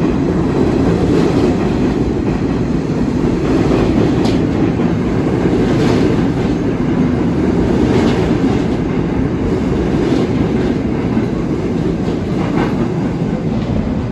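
New York City subway train running past along a station platform: a loud, steady rumble with a few clacks of wheels over rail joints.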